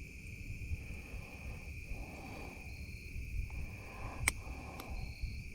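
Insect chorus droning steadily at one high pitch, over low rumbling handling noise, with one sharp click a little past four seconds in.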